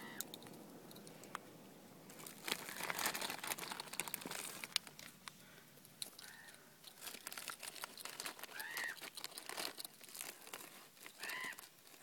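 Crinkling and rustling close by, in two stretches, with a few faint short rising-and-falling calls from common ravens.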